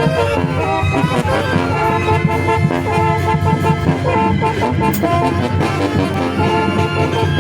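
Zacatecan tambora band (tamborazo) playing: trumpets and saxophones carry the melody over the tambora bass drum.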